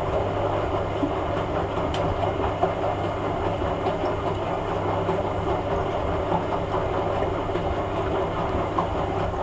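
Hoover A3786 Logic washing machine running during its rinse-and-spin programme: a steady mechanical hum with a rumbling, rattling noise. It stops abruptly near the end.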